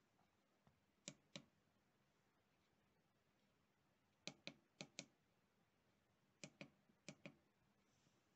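Faint clicks of the push buttons on a small handheld oscilloscope being pressed, in quick pairs: one pair about a second in, two pairs around four to five seconds, and two more around six and a half to seven seconds.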